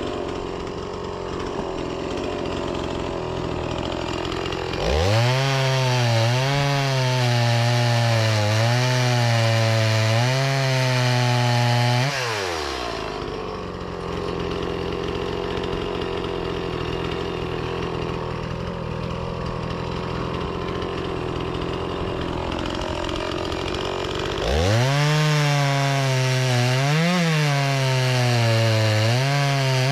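Two-stroke chainsaw cutting fruit-tree firewood: it is throttled up to full speed about five seconds in and held for some seconds, its pitch wavering under the load of the cut, drops back to a lower running speed, then goes to full throttle again near the end.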